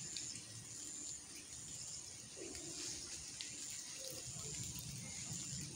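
Quiet outdoor ambience: a short high-pitched chirp repeating evenly about once a second over a faint low murmur, with a brief wavering call about halfway through.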